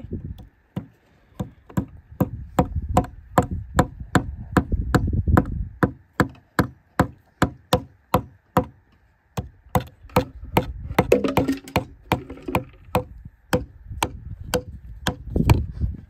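A claw hammer tapping small nails into a thin wooden birdhouse kit: a long run of light, sharp strikes, about two or three a second, with brief pauses near the start and about nine seconds in.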